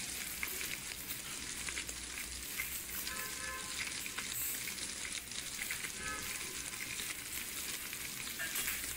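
Tandoori momos on a cabbage bed sizzling steadily on a very hot sizzler plate, with a few light clicks from handling.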